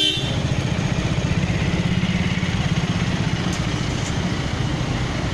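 DC Avanti sports car's engine idling, a steady low exhaust rumble with rapid even pulsing.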